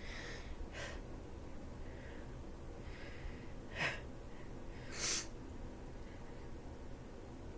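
Congested breathing from a person with a head cold: a faint breath at the start, a short sharp sniff about four seconds in, and a louder noisy intake of breath about five seconds in.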